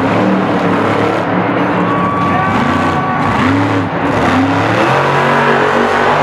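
Monster truck engine revving up and down several times in quick succession as the truck drives across the dirt arena floor.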